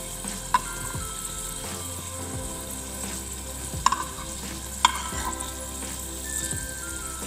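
Garlic cloves sizzling steadily in mustard oil in a pan over low heat, just starting to brown. Three sharp knocks of a utensil on the pan ring out, about half a second in, near four seconds and near five seconds, as the cloves are stirred.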